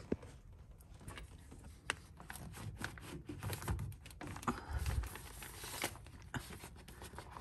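Paper pages of old magazines rustling and crinkling as they are handled and turned over by hand, with small clicks and a few soft low knocks of handling.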